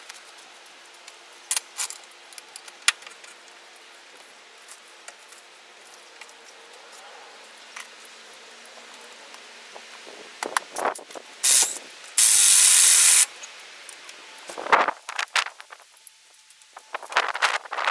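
Metal tools and parts clicking and clattering during a wheel change, with a loud, steady hiss lasting about a second, about twelve seconds in.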